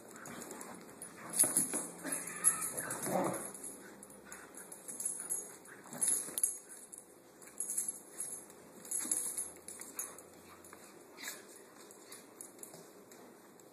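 Two dogs, a Korean Jindo and a small dachshund-papillon mix, tugging and scuffling over a rope toy, with a collar tag jingling in repeated short bursts. A dog whines briefly about two to three seconds in.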